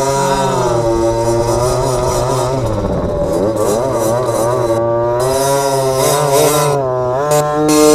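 Small dirt bike engine running under way with two riders aboard, its pitch rising and falling with the throttle: it dips about three seconds in and climbs near the end.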